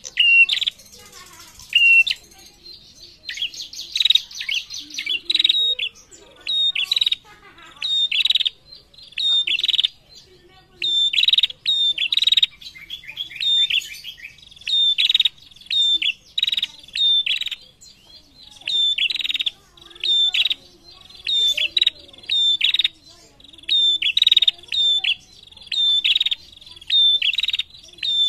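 Female prenjak (red-headed tailorbird) calling vigorously: loud, sharp chirps repeated about once or twice a second, broken by a few rapid trills.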